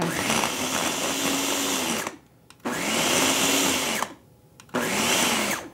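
Countertop blender puréeing thick potato and beer soup, run in three short pulses. In each pulse the motor's whine rises as it spins up and falls away as it stops.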